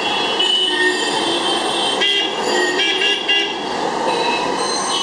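Busy street traffic with several short vehicle horn honks, a quick run of them about two to three and a half seconds in, over a steady din of traffic noise.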